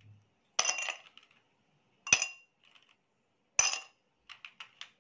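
Ice cubes dropped one at a time into an empty drinking glass: three sharp clinks about a second and a half apart, each with a brief glassy ring. A quick run of small, light clinks follows near the end.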